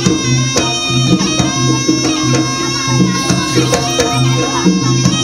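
Jaranan music: a reedy double-reed shawm (slompret) plays a melody in long held notes over sharp drum strokes and a repeating low gong-chime pattern.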